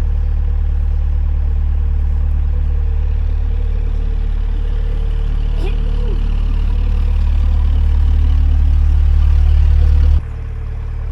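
A narrowboat's diesel engine running steadily as a low drone. It grows slightly louder, then drops suddenly in level near the end.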